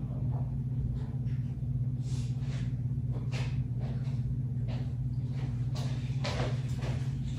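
Someone chewing crunchy tortilla chips, a crisp crunch about every half second, over a steady low hum.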